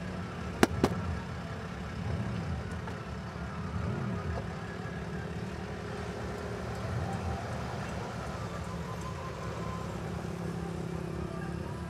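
Engine running steadily at low speed, its pitch rising and falling slightly a couple of times. Two sharp knocks come about a second in.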